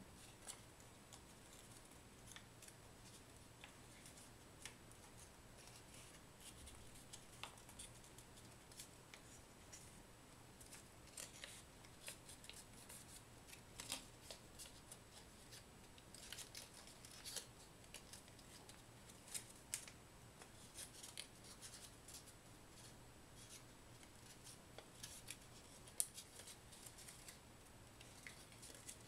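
Origami paper being folded and creased by hand: faint, scattered crinkles and crackles of the paper, with one sharper crackle near the end.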